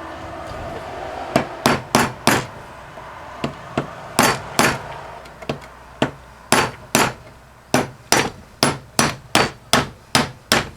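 Hammer blows on a screwdriver used as a drift, driving the center shaft out of a Flojet water pump's electric motor held over a vise. Sharp metal strikes start about a second and a half in, come irregularly at first, then settle into a steady pounding of about three a second.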